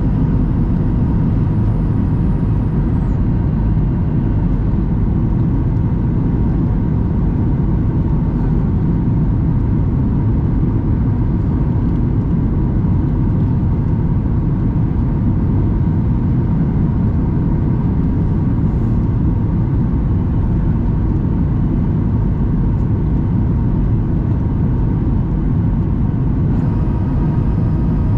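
Steady cabin noise of a Boeing 737-800 in flight, heard inside the cabin: the CFM56-7B engines and the airflow around the fuselage, with a faint steady hum.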